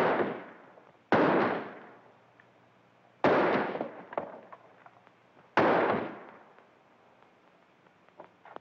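Four revolver shots at uneven intervals over about six seconds, each dying away with a long echo, followed by a few light knocks near the end.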